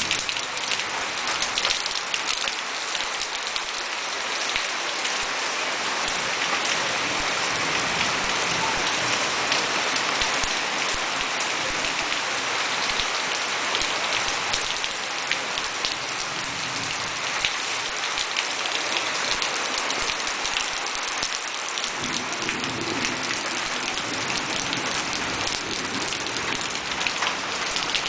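Steady rain falling: a dense, even hiss with many separate drops ticking on surfaces.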